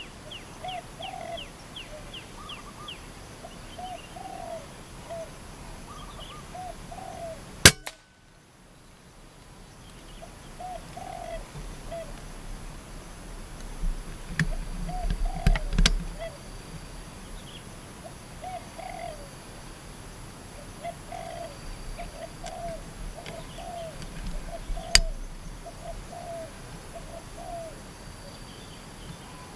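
Spotted doves cooing over and over, broken about a quarter of the way in by a single sharp crack of an air rifle shot. About halfway there is rustling and a few thuds as the shot dove falls through the branches, and a second, quieter crack comes near the end.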